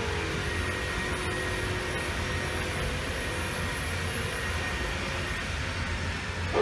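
Steady mechanical drone of running machinery, with a low hum and a faint high whine held throughout.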